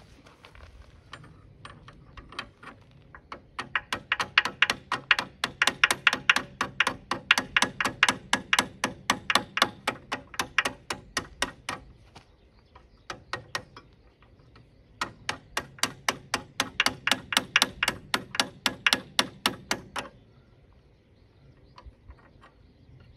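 A hand tool working a stuck part on a mini excavator's track frame: sharp metallic clicks, evenly spaced about three a second. They run for several seconds, pause briefly, then run again for about five seconds and stop a few seconds before the end.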